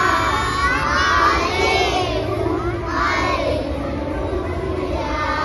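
A group of young children shouting and cheering together in chorus, many voices at once.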